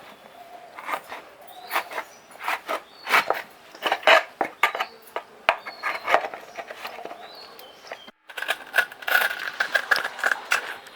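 Raw (green) jackfruit being cut up with a knife: an irregular run of sharp chops, knocks and light clinks, growing denser after a brief break about eight seconds in.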